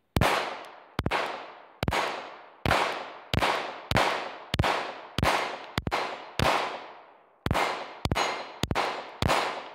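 Glock pistol firing Federal aluminum-cased ammunition, about fourteen shots at a steady pace of roughly one every 0.6 to 0.8 seconds, with a slightly longer pause about seven seconds in; each shot's echo dies away before the next. The pistol cycles every round from the P-Mag without a stoppage.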